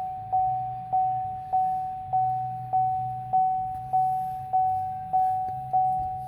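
Car dashboard warning chime of a GM crossover with the ignition switched on and the engine not running: a single-pitch ding repeating steadily, about one and a half a second, each ding fading before the next.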